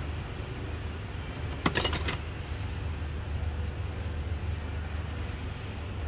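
A quick run of sharp metallic clinks, about half a second long and a little under two seconds in, from a hand tool working a bolt on the open top of the engine, over a steady low hum.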